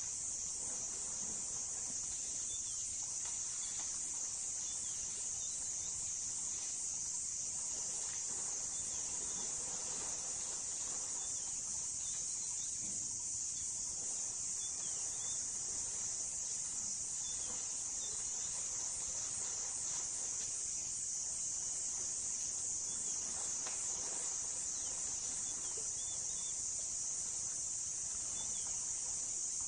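A steady high-pitched drone of insects, with faint bird chirps scattered through it.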